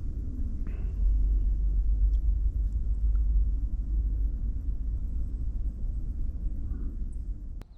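Wind buffeting the microphone outdoors: a low, fluctuating rumble that cuts off with a sharp click near the end.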